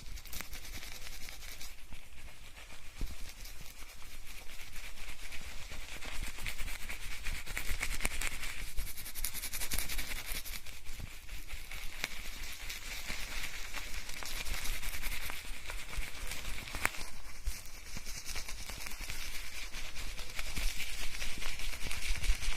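Hands scrubbing shampoo lather through hair, recorded binaurally close to the head: a dense, continuous crackle of foam and hair rubbing.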